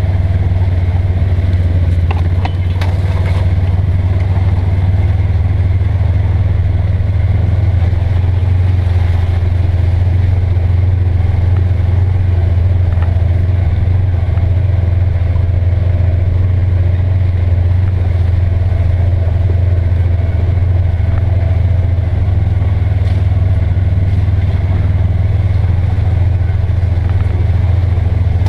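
Polaris Ranger XP900 utility vehicle's twin-cylinder engine running under way, a loud, steady low drone that holds even, without revving up or down.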